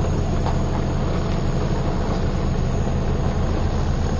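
The engine of an old lorry running steadily as it hauls a narrowboat along on land, a low, even engine note that holds unchanged.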